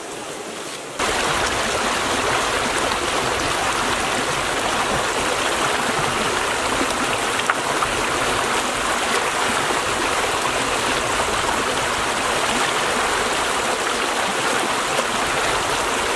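Shallow stream rushing over rocks, a loud steady splashing rush of water that comes in abruptly about a second in.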